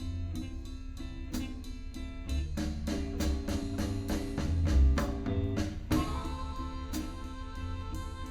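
Instrumental passage of a blues song: a drum kit keeps a steady beat under bass and other sustained instrument parts, with no singing.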